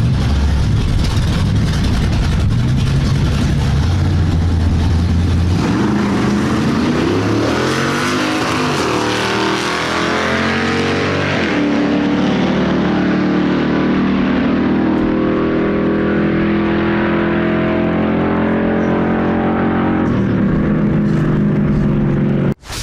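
Engine of a vehicle making a drag-strip pass, revving hard and climbing through the gears: three rising pulls, each dropping back at a shift, then a steady high-revving run.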